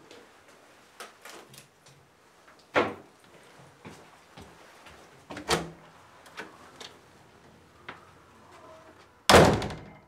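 Doors being handled: light clicks and knocks, two sharper bangs about three and five and a half seconds in, then a loud door slam near the end.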